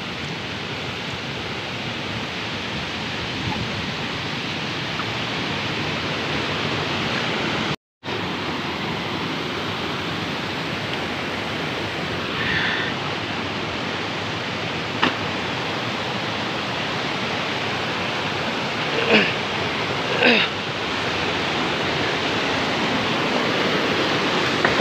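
Steady rush of muddy floodwater running through landslide rubble. The sound cuts out for a moment about eight seconds in, and a few brief faint distant calls come through in the second half.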